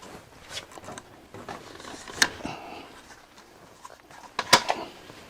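Hands handling a whole-house air purifier's pleated filter and its housing: light rustling and scraping, with two sharp clicks about two seconds in and again near the end.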